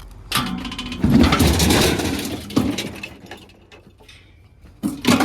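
Scrap metal clattering and scraping as a sink is pulled out of a scrap pile and handled, loudest in the first two seconds, with a few sharp knocks near the end.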